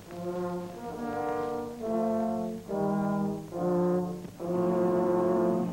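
Film score with brass instruments playing a slow series of about six held chords, each close to a second long, with short breaks between them.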